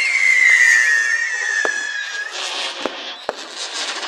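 A whistling firework shrieks with a warbling tone that slowly falls in pitch. It cuts off about two seconds in and gives way to crackling and a few sharp pops.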